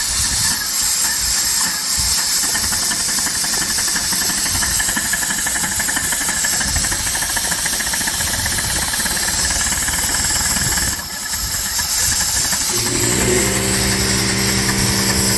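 Dake square-piston steam engine running fast on compressed air: a rapid chuffing exhaust beat over a heavy hiss of air, sounding much like a Model T. The sound dips briefly about two-thirds of the way through. Near the end a steady hum joins in, the shop air compressor running to keep up with the engine's air demand.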